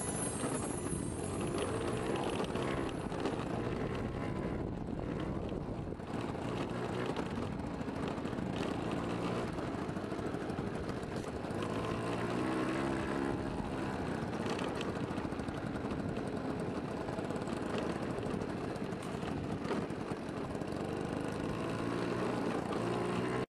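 Motor scooter engine running while being ridden along a rough dirt track, with road and wind noise. The engine pitch rises and falls with the throttle about halfway through.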